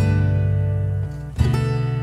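Background music: acoustic guitar strumming chords, with a new chord struck about a second and a half in.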